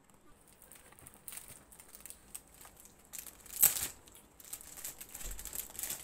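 Cardboard toy box being handled and its flap pulled open, with scattered rustling and crinkling of the packaging and one sharp, much louder noise about three and a half seconds in.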